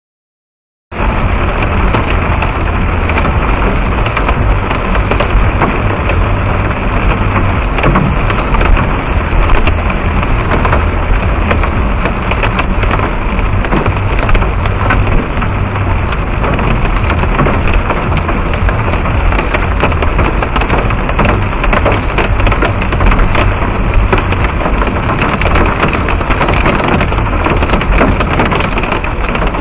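Small pea-sized hail mixed with rain pelting hard surfaces: a dense, steady clatter of many tiny impacts that starts abruptly about a second in.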